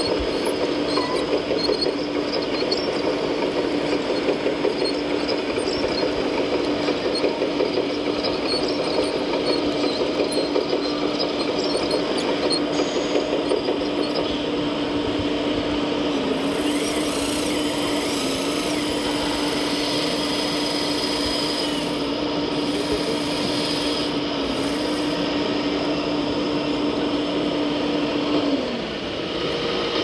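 Scale RC Liebherr 960 SME hydraulic excavator running, a steady hum with mechanical whirring as its tracks drive it onto a low-loader trailer. The hum cuts off about a second and a half before the end.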